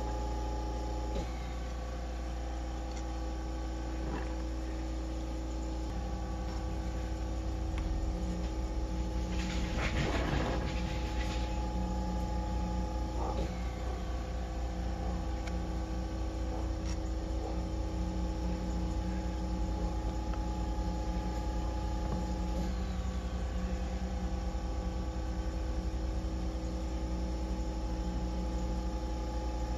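Steady electrical hum, deepening about six seconds in, with a brief rustle of handling near ten seconds in.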